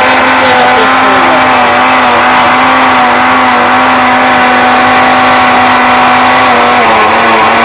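Jaipan 1200-watt mixer grinder running at full speed with a loud, steady whine while grinding ginger and garlic with a little water into paste in its small steel jar. The pitch dips slightly near the end.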